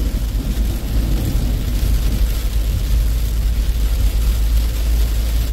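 Heavy rain on a moving car and its tyres hissing through standing water, heard from inside the cabin as a loud, steady wash over a low road rumble.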